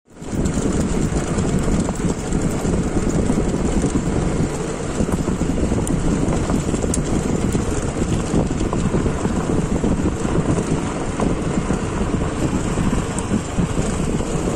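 Steady rush of wind buffeting the microphone, with the road and engine noise of a moving vehicle beneath it; the sound starts abruptly and holds steady throughout.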